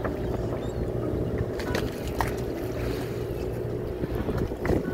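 Sportfishing boat's engine running with a steady low hum, with a few short sharp clicks and knocks over it.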